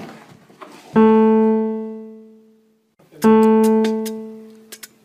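Background music: a single piano note, struck about a second in and again a couple of seconds later, each left to ring and fade. A few light clicks sound under the second note.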